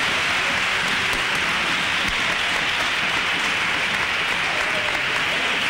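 Crowd applauding: a dense, steady clapping.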